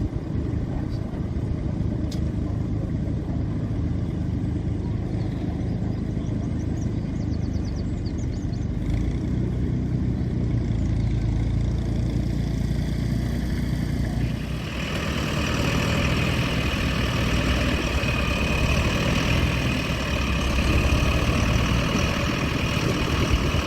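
Vintage farm tractor engine running steadily, with a louder hissing noise joining it about two-thirds of the way through.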